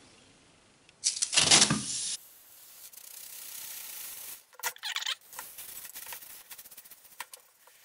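Small clothes iron pressed and slid over wet transfer paper on a copper circuit board, ironing on a toner transfer: a loud rubbing hiss about a second in, a fainter steady hiss, then scattered clicks and scrapes of the iron.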